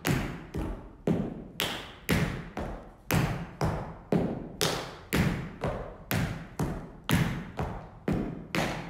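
Tap dance steps struck on a studio floor, a steady run of sharp taps about two a second, each ringing briefly in the room.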